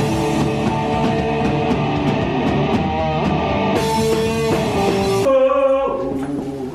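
Rock band playing loud: electric guitars, drums and singing. About five seconds in the cymbals and the full band drop away, leaving a single held note.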